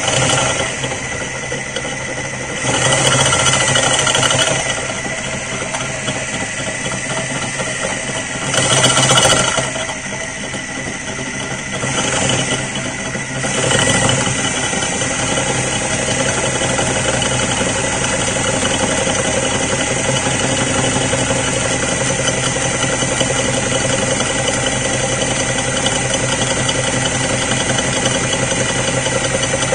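Electric drill running steadily with a 14 mm masonry bit grinding slowly into a ceramic toilet-cistern lid to enlarge the hole. There are three short, louder, hissing spells: a few seconds in, around nine seconds, and around twelve seconds.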